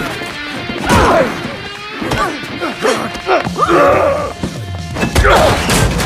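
Film fight soundtrack: music under a string of punches, thuds and crashes, with short grunts of effort, the heaviest hit coming about five seconds in.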